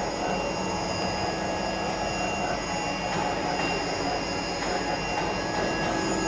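A spray dryer running: a steady mechanical hum and rush with several high, steady whining tones.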